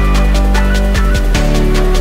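Background music: an electronic track with a fast, steady drum beat over heavy, sustained bass.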